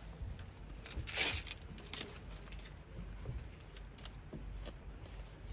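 Faint scattered rustles and small clicks, with a brief whoosh of noise about a second in, like gear and clothing being handled while moving about on gravel.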